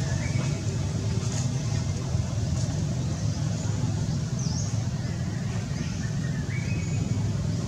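Steady low rumble with a few short, faint high chirps over it.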